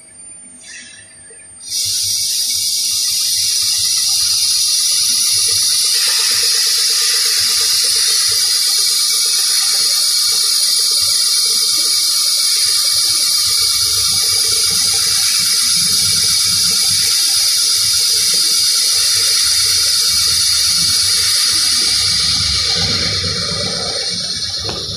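Water running in a steady hissing stream, switched on abruptly about two seconds in.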